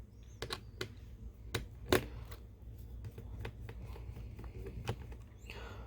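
Small scattered clicks and ticks of a Phillips screwdriver taking out the screws that hold a laptop's LCD panel in its lid, with one sharper click about two seconds in.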